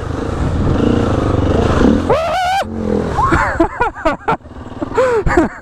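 A KTM 350 EXC-F dirt bike's single-cylinder four-stroke engine runs under throttle as it ploughs through a deep water crossing, rising in revs about two seconds in. Short shouted exclamations from the rider follow in the second half.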